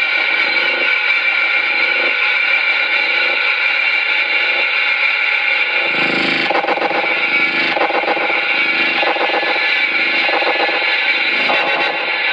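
Electric guitar played through a chain of effects pedals and distortion: a dense, sustained drone of many held tones. About halfway through, new picked or strummed attacks come in over the drone, repeating roughly every second or so.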